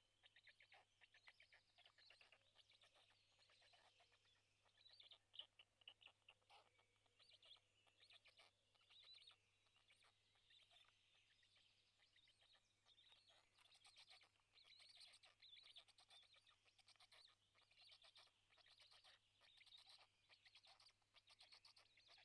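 Faint, rapid high-pitched bird chirping going on almost without a break, with a steady low hum beneath it.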